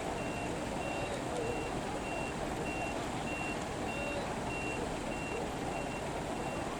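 A fire truck's reversing alarm beeping steadily, one high single-tone beep a little more often than once a second, as the truck backs into position. A low rumble of vehicles runs underneath.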